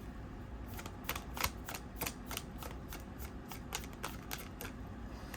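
Tarot cards riffled through by hand: a run of quick, sharp card snaps, several a second, starting about a second in and stopping near the end.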